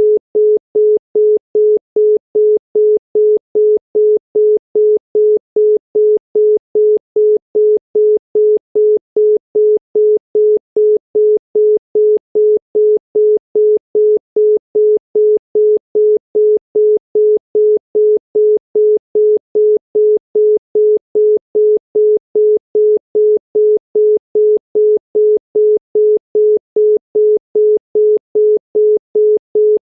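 Obsolete Spanish telephone busy tone (busy tone B): a single 425 Hz tone beeping rapidly and evenly, 0.2 s on and 0.2 s off, signalling that the called line is busy.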